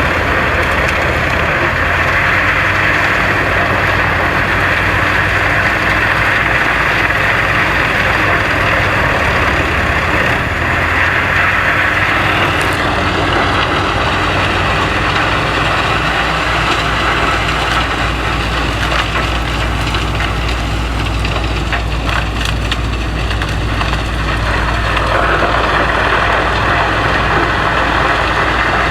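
Wood chipper running steadily and chipping wood, with a loud cutting noise over the engine hum. The chipping eases a little after about 13 seconds and comes back in strength near the end.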